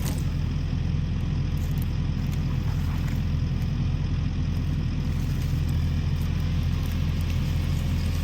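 Kubota SVL65-2 skid steer's diesel engine running steadily at an even speed.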